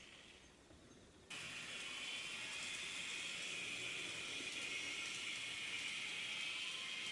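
N-gauge model train running on the layout's track: a steady mechanical running noise that cuts in suddenly about a second in, after a quieter moment.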